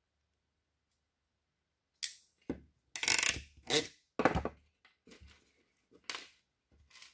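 Handling noise of a hand crimping tool and wires on a workbench: a string of irregular clacks, knocks and rustles starting about two seconds in, the loudest around three seconds in.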